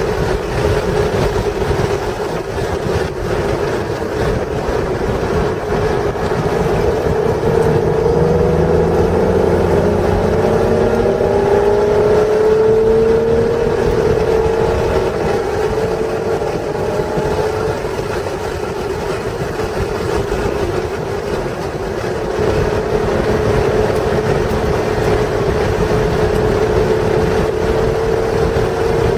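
A 1996 Acura NSX's stock 3.0-litre V6 runs hard around a race track, with wind and road noise. The engine note climbs slowly in pitch under acceleration, once through the middle and again near the end.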